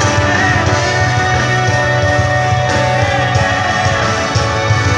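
Live band playing amplified through stage loudspeakers, guitar and a strong bass line prominent, with held melody notes over a steady beat; a rehearsal and sound check before the show.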